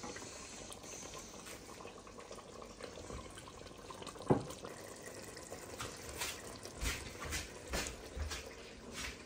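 A metal ladle scoops hot chicken curry gravy from a steel pot and pours it into a bowl, with liquid sloshing and dripping. There is one sharp knock about four seconds in, then a run of light clinks and scrapes of utensil on the pot near the end.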